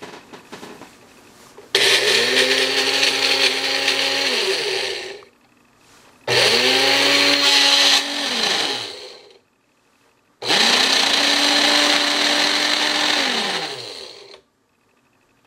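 A small electric motor run in three bursts of a few seconds each. Each burst starts suddenly, holds a steady whine, then falls in pitch as the motor spins down.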